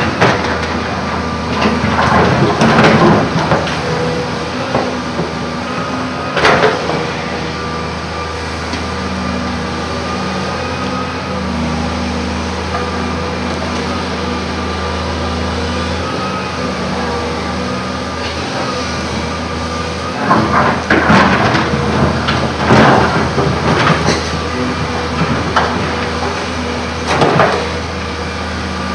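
Volvo EC210 hydraulic excavator's diesel engine running steadily with a high steady whine over it. Loud bursts of grinding and clattering as the bucket digs into and moves rocky earth, about two seconds in, again briefly around six seconds, and in a cluster from about twenty to twenty-seven seconds in.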